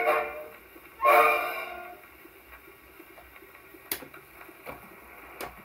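The last notes of an enka song on a 78 rpm shellac record, played through a portable acoustic gramophone's soundbox with a steel needle. The music ends about two seconds in. After that the needle runs in the run-out groove: a low surface hiss, with a sharp click about every three quarters of a second, once per turn of the record.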